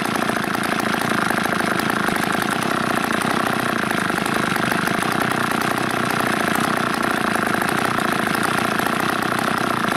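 Two-stroke chainsaw engine running steadily on wood gas from a homemade gasifier, through its unmodified carburetor, with the air-fuel mixture set by hand at a large ball valve.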